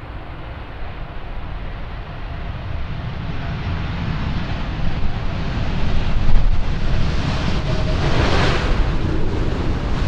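Airbus A380-861's four Engine Alliance GP7200 turbofans rumbling as the jet rolls past on a wet runway, growing louder as it comes closer, with the hiss of tyre spray and wind buffeting the microphone. A hissing surge comes about eight seconds in.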